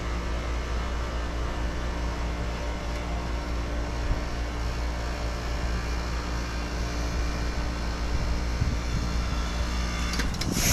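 2018 Aire-Flo 4HP15 heat pump running steadily with a low compressor hum during its defrost cycle. Near the end come a few clicks, then a sudden loud rushing hiss as the reversing valve shifts and refrigerant flow reverses.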